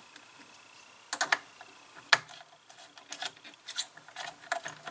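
Small sharp clicks and ticks of a precision screwdriver and wire ends being worked at screw terminals on a CNC breakout board: a couple of louder clicks, then a run of lighter ticks.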